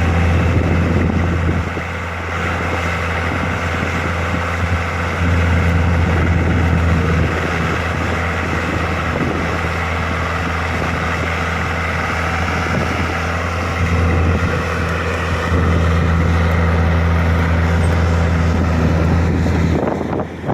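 A motor running steadily with a low hum, its level stepping up and down a few times and dropping off shortly before the end.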